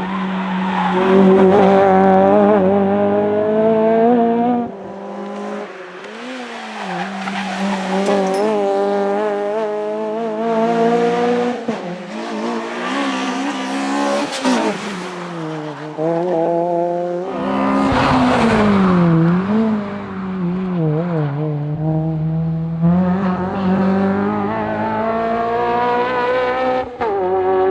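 Honda Integra Type R's four-cylinder VTEC engine revving hard at stage pace: its pitch climbs and drops sharply again and again through upshifts, downshifts and lifts for corners. Tyres squeal at times through the bends.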